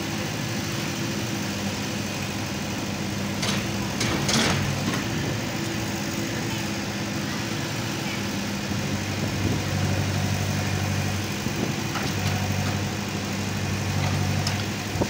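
Tata Hitachi TH86 backhoe loader's diesel engine running steadily as the backhoe arm digs soil, with a brief clatter about four seconds in. The engine note grows stronger twice in the second half, as the bucket is worked and lifted.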